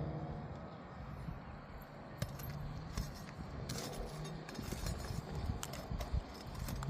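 Short metallic clinks and scrapes of a hand tool working a roofing nail out of a shingle, a handful of sharp ticks scattered through.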